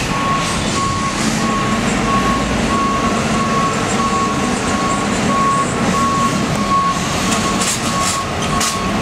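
Fire truck's reversing alarm beeping steadily at one pitch, about one and a half beeps a second, over the running engine of the tractor-drawn aerial ladder truck as it backs up.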